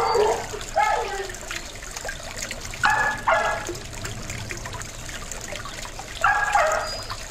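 Dog barking in short barks, singly and in pairs a few seconds apart, over the steady trickle of a small pond fountain.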